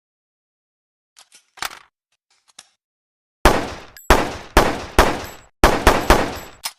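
PPM-9 handgun sound effect: a few quiet clicks, then about eight gunshots fired in quick succession, roughly two a second, each with a short decaying tail.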